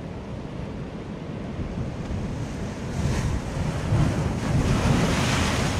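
Sea surf washing and breaking against shoreline rocks, building up from about halfway through and loudest near the end, with wind buffeting the microphone.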